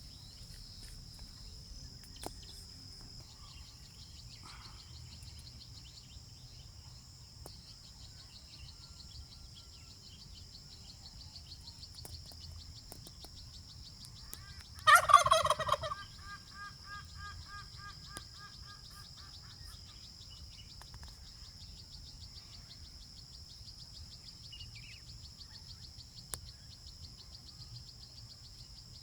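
A domestic turkey gobbles once, loud and rattling, about halfway through, trailing off in a fainter quick rattle. A steady high insect buzz runs underneath.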